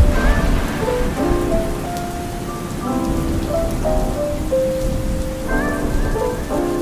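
Steady rain with a low rumble of thunder, under soft instrumental music playing a slow melody of held notes.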